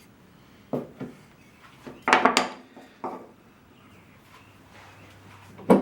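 Pine workpieces being handled and knocked together on a workbench during a glue-up: several separate wooden knocks and clatters, the loudest cluster about two seconds in and another sharp knock near the end.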